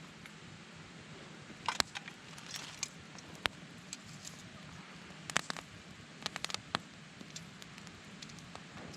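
Wood fire crackling, with scattered sharp pops over a steady low hiss and a quick run of pops between about five and seven seconds in.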